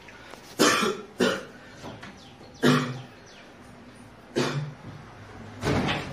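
A young man coughing again and again, about five separate dry coughs spread over six seconds. It is portrayed as the persistent cough of a tuberculosis patient.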